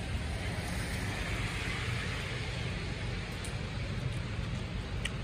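Steady heavy rain with the hiss of tyres on a wet street; the hiss swells and fades about a second in as a car goes by.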